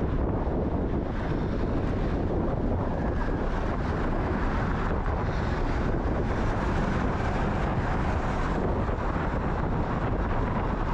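Wind buffeting the microphone while riding a bicycle: a steady rushing noise, heaviest in the deep low end, that does not let up.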